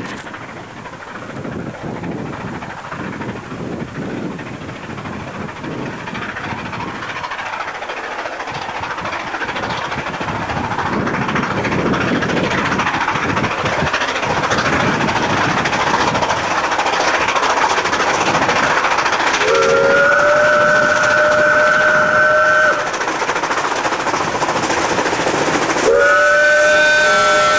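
Double-headed steam train working toward the listener, its exhaust and running noise growing steadily louder as it approaches. A steam whistle sounds for about three seconds around twenty seconds in, and again as the locomotives draw level near the end.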